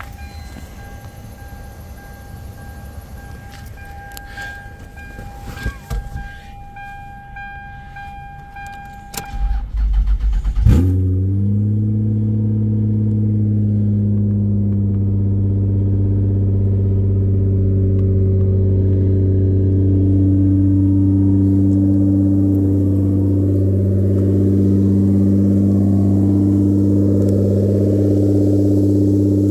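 Toyota Camry wagon engine being started. The starter cranks briefly about nine seconds in, the engine catches with a loud burst, and it settles into a steady idle. Before the start there is a steady high-pitched warning tone from the car and a few clicks.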